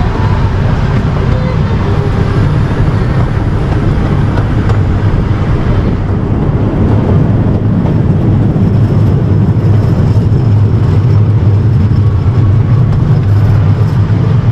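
Casey Jr. Circus Train ride running along its track, heard from the back car: a steady low rumble that grows a little louder in the second half.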